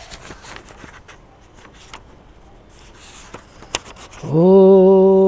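Paper rustling with a few light clicks as a sheet is handled, then about four seconds in a man's voice starts one long, steady sung note, loud and held on one pitch.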